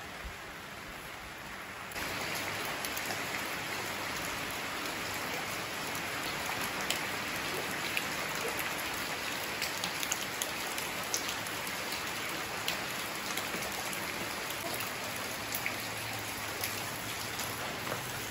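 Steady rain falling on wet concrete and plants, with scattered single drops ticking. It gets louder about two seconds in.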